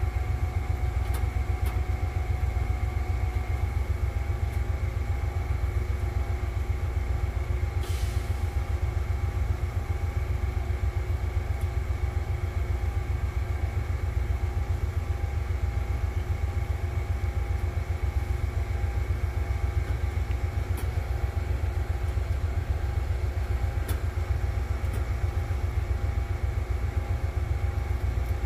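Steady mechanical hum of a stopped Amtrak passenger train alongside, a deep low drone with several steady tones above it, with a brief hiss about eight seconds in.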